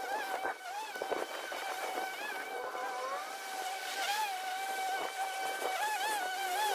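Ryobi 36V battery-powered lawn mower running while cutting grass, its electric motor and spinning blade giving a steady high whine whose pitch bobs briefly upward a few times.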